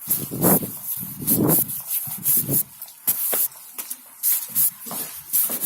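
Irregular rustling and shuffling scrapes, about one a second: footsteps and clothing rubbing near the recorder while walking.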